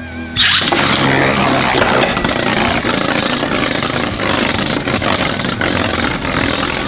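Two Beyblade Burst spinning tops, one of them 3D-printed, hitting a plastic stadium about half a second in and then spinning and scraping around the bowl with a loud, steady rattling whir as they circle each other.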